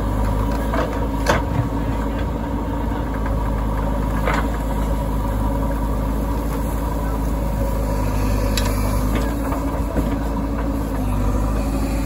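JCB backhoe loader's diesel engine running steadily under hydraulic load as the bucket digs, lifts and swings a load of soil, with a few short sharp knocks of metal and stone.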